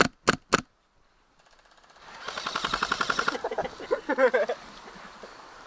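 Gas blowback airsoft gun firing three quick single shots, each a sharp crack, in the first half second. About two seconds in comes a rapid burst of automatic airsoft fire lasting about a second, quieter than the single shots, followed by a brief voice.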